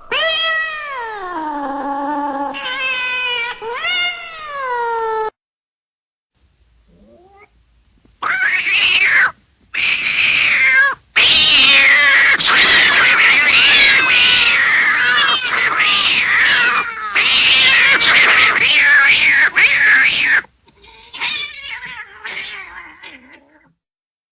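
Cat yowl sound effects: one long yowl that falls and rises in pitch, then after a brief pause a long, dense stretch of many overlapping screeching yowls, with short cuts between clips, ending in fainter yowls.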